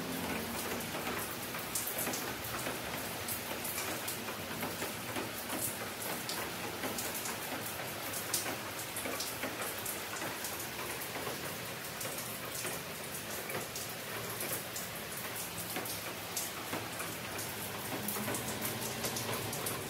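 Steady rain falling, an even wash of sound dotted with many small drop ticks.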